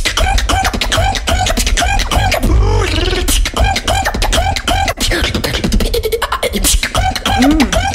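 Human beatboxing into a microphone: rapid drum-like kicks, snares and clicks over a deep bass, with a short rising-and-falling vocal tone repeated about twice a second.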